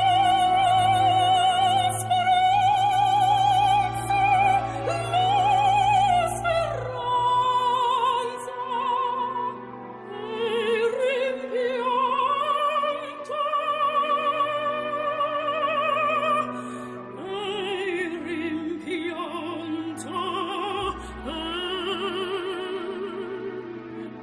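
Operatic singing: one voice holding long notes with a steady vibrato and sliding between pitches, over a soft sustained accompaniment.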